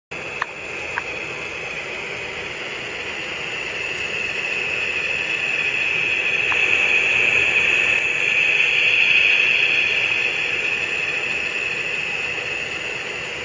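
N scale model train with a Tomix track-cleaning car running past, the cleaning car's decoder-controlled vacuum fan motor giving a steady hissing whir. The whir grows louder toward the middle as the train passes, then eases, with two small clicks in the first second.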